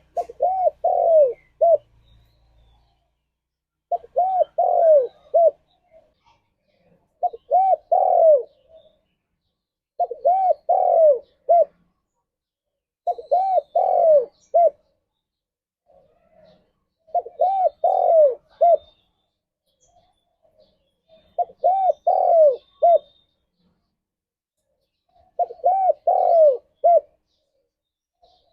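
Spotted dove (tekukur) cooing: a phrase of three or four rising-and-falling coos, the last one short, repeated eight times with about three seconds of silence between phrases.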